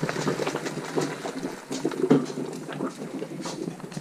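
Hot 7-Up and chunks of boiled burbot poured from a pot into a strainer in a kitchen sink, the liquid splashing as it drains.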